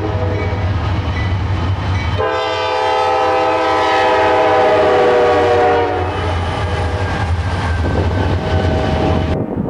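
Diesel locomotive's multi-chime air horn sounding over the low rumble of the passing train: one long blast from about two seconds in to about six seconds, with fainter horn tones lingering afterward.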